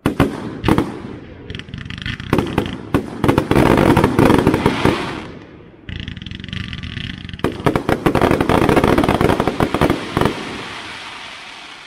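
Aerial firework shells bursting. A few sharp single bangs come in the first second, then two long spells of dense, rapid crackling a few seconds each, the second dying away near the end.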